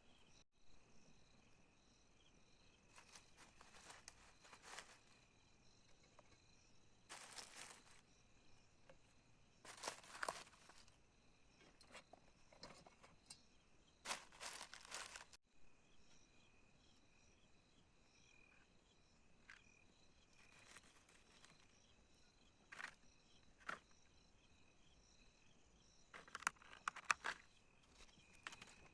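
Faint steady chirring of crickets, with short bursts of rustling and crunching from handling every few seconds.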